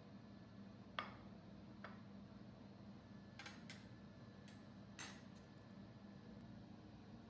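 A few light clinks and knocks, like cutlery and dishes being handled, over a quiet room hum; the loudest comes about five seconds in.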